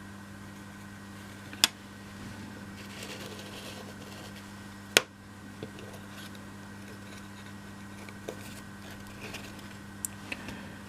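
Laser-cut MDF model parts being handled and fitted: two sharp knocks, about 1.5 s and 5 s in, and a few lighter taps near the end, over a steady low hum.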